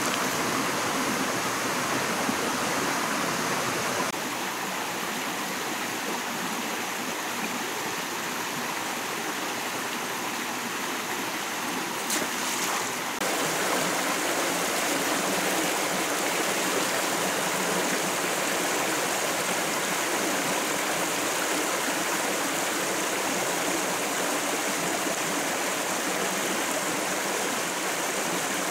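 Shallow rocky forest stream running over stones and small cascades: steady rushing water that shifts a little about four seconds in and again near the middle.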